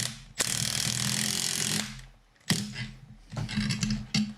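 Impact wrench hammering in bursts: one long burst of about a second and a half near the start, then shorter bursts, as it drives a threaded-rod press to pull a new rear suspension bush into the arm.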